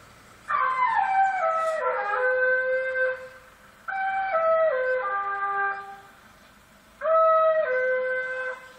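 Scrap collector's recorded call blaring through a vehicle loudspeaker: three loud, harsh phrases, each stepping down through a few held pitches, with short gaps between.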